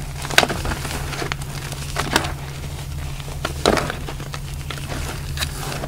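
Gym chalk crunching and crumbling as hands squeeze it, in crisp bursts about four times, over a steady low hum.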